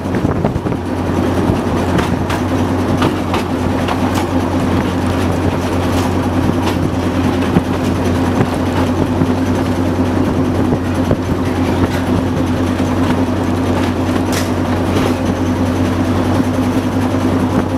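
TU4 narrow-gauge diesel locomotive under way, heard from inside the cab: a steady low engine drone with the clatter of the train running on the rails and a few sharp clicks from the wheels.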